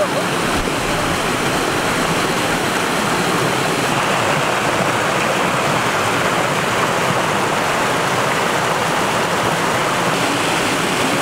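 Rushing water of a rocky forest stream spilling over small cascades, a steady, even rush with no change in level.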